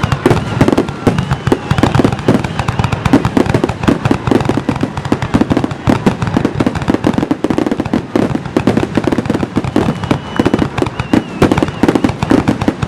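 Fireworks going off in a rapid, nearly continuous barrage of bangs and crackles, many reports a second.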